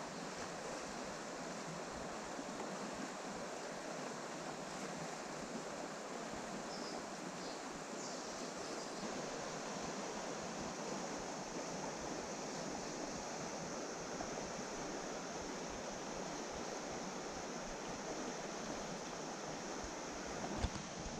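Steady rush of a fast-flowing river current, even and unbroken, with one brief click near the end.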